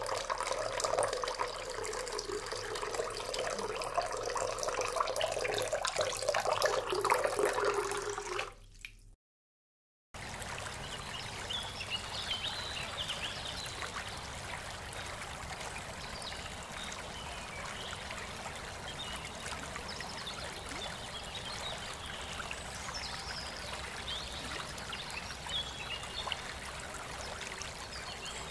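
Running water trickling and splashing. About nine seconds in it cuts out for about a second, then goes on as a quieter, steadier stream-like rush with faint high chirps over it.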